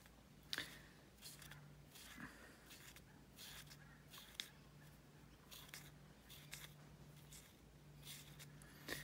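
Near silence broken by faint soft rustles and light ticks as DMC stranded cotton embroidery floss is drawn out of its skein by hand, with slightly sharper ticks about half a second in and again near the end.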